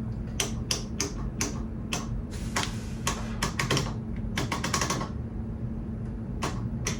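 A series of sharp mechanical clicks, a few per second with a quick flurry about two-thirds of the way through and two more near the end, over a steady low hum.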